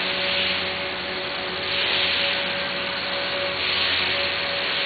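Small electric radio-controlled helicopter in flight: a steady whine from its motor and rotor, over a hiss that swells and fades about every two seconds.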